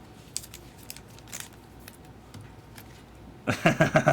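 Faint scattered clicks and light crackling of trading cards and packs being handled. A voice comes in near the end.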